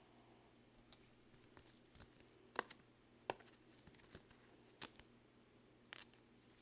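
Faint, scattered clicks and taps from gloved hands handling a trading card, about five sharp ticks at irregular spacing over near silence.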